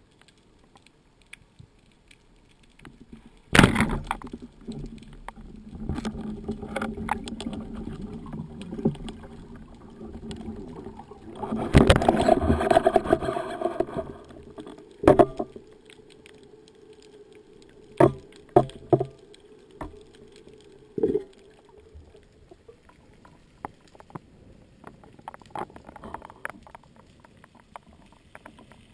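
Underwater spearfishing: a sharp thump about three and a half seconds in as the wooden speargun fires, then churning water noise, loudest around twelve seconds in with splashing at the surface. A few scattered clicks and knocks follow over quieter water.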